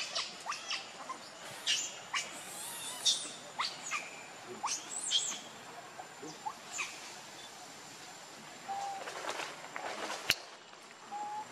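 Birds chirping: scattered short, quick high-pitched chirps and sweeping calls, with a faint steady high whine underneath and a sharp click about ten seconds in.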